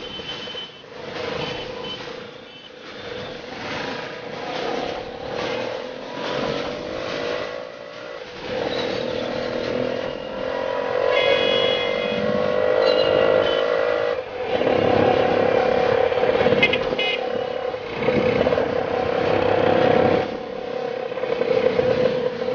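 Auto-rickshaw engine running steadily in dense city traffic, with motorcycles and cycle rickshaws passing close. Short horn beeps sound a few times around the middle.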